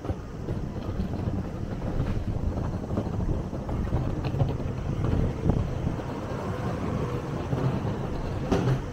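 Low, steady rumble of wind on the microphone over outdoor street ambience, with a brief louder noise near the end.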